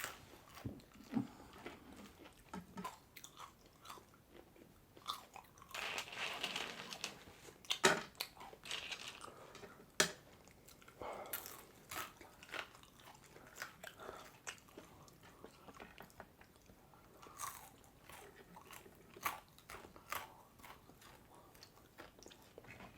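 Close-up eating sounds: chewing and biting into pulled pork sandwiches and crispy fries, with irregular crunches and small mouth clicks.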